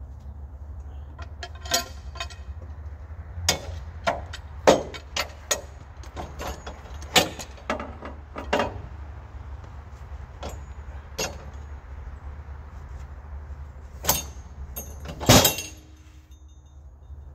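Cant hook and elm log knocking and clanking against the steel bed and log stops of a sawmill as the log is levered over onto its side: a string of sharp irregular knocks, the loudest a double knock near the end, over a steady low hum.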